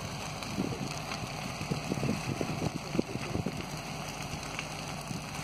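A burning tractor and seeder: fire crackling with irregular pops over a steady rushing noise.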